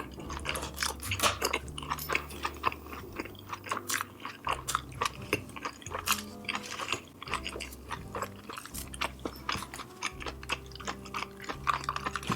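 Close-miked eating sounds: rapid, wet chewing and biting clicks of food being eaten, over background music with a steady low bass line.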